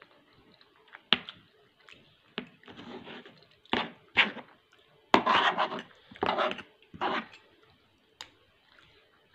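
A metal spoon and fork scraping and clicking against a plastic plate while someone eats: a few short scrapes in the middle and two sharp clicks, one about a second in and one near the end.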